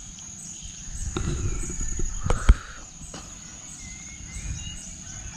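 Outdoor dawn ambience: birds chirping and a steady high-pitched insect buzz. A low rumble comes in between about one and two and a half seconds in, along with a few sharp knocks; the loudest knock is about two and a half seconds in.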